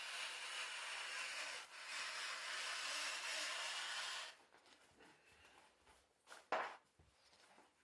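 Scissors gliding through a sheet of PhotoTex sticker material in a long continuous cut, a steady papery hiss with one brief break, stopping about four seconds in. A few faint clicks and a sharper tick follow.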